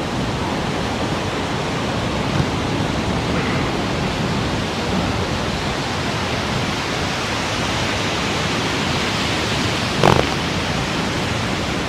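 Steady rush of ocean surf and wind on the microphone. A short, sharp sound cuts in briefly near the end.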